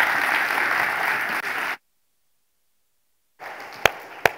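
Audience applauding, cut off abruptly a little under two seconds in, then total silence. Near the end, faint room noise returns with two sharp knocks.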